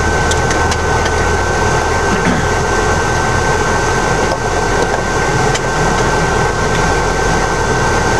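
A vehicle engine idling steadily, a low rumble under a thin, steady high-pitched whine.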